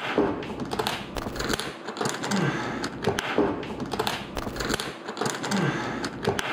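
A few seconds of recording full of clicks, taps and rustling, replayed over and over about every three seconds. Each pass holds a short falling voice-like sound, which is shown as yelling.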